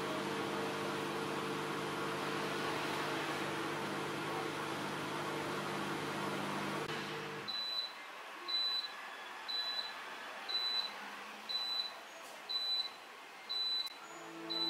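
Faber FFSD 6PR 12S Neo dishwasher running with a steady hum and hiss that stops about seven and a half seconds in. It then beeps about once a second, eight short high beeps, signalling the end of the wash cycle.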